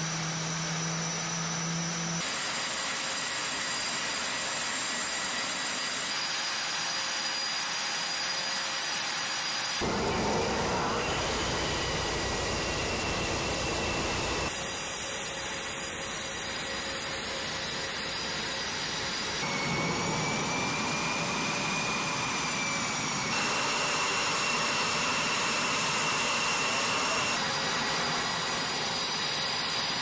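Jet engines of carrier-based F/A-18 Super Hornets running on the flight deck. The noise is steady with a high turbine whine that shifts slightly in pitch, and the level jumps at several cuts. A deep rumble comes in about ten seconds in and drops out about four seconds later.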